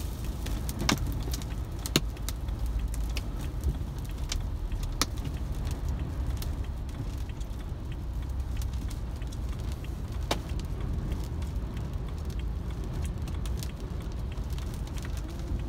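Tornado winds buffeting a car, heard from inside the cabin as a steady low rumble. Scattered sharp ticks of rain and flying debris strike the windshield and body, the loudest about two seconds in.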